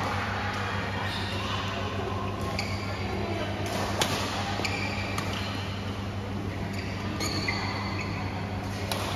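Badminton play: irregular sharp hits of racket on shuttlecock, with short high squeaks in between.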